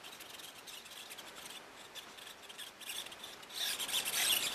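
Tiny servos in a WLtoys Cessna 182 RC foam plane whirring with a high buzz as the gyroscope drives the control surfaces to correct the plane's attitude while it is tilted by hand. The whirring is faint at first and grows louder about three and a half seconds in.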